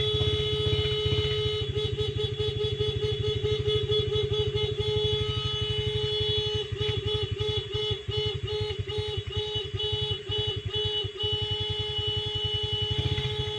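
Motorcycle horn sounded at length as a call to cattle to come home to the pen, mostly held as one steady note; in two stretches it is beeped in quick repeated taps, two or three a second. Under it runs the low rumble of the motorcycle's engine.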